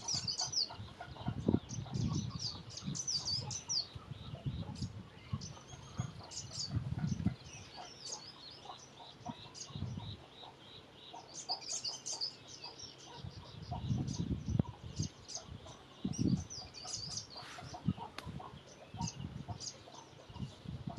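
Small birds chirping in many quick, high, short notes that come in clusters, with irregular low rumbles underneath.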